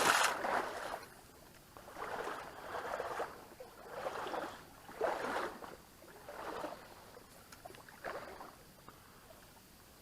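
Water splashing and sloshing in short, irregular bursts about once a second, loudest right at the start and fading toward the end.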